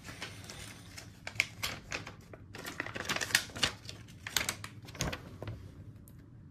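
Paper instruction leaflet being unfolded and handled: an irregular run of crackles and clicks.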